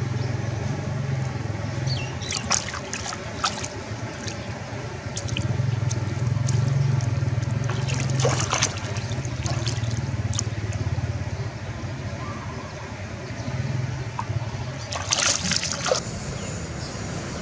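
Water splashing and dribbling around a wire-mesh keep basket holding caught catfish in the river, in a few short splashes near the start, about eight seconds in and near the end, over a steady low rumble.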